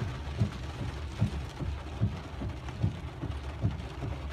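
Inside a vehicle's cab in the rain: a steady low engine and road rumble with rain noise, and the windshield wipers sweeping with a soft low thump about every 0.8 seconds.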